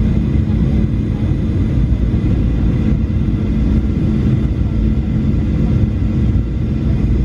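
Jet airliner engine noise: a steady, unbroken low drone with a few faint constant tones riding over it.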